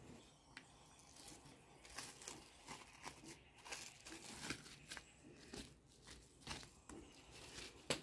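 Plastic cling film crinkling as it is peeled off a bowl of risen bread dough: a faint, irregular run of crackles and rustles.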